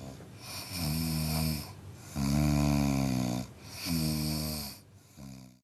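Corgi puppy snoring in its sleep: three long, pitched snores in a row, then a shorter, fainter one near the end.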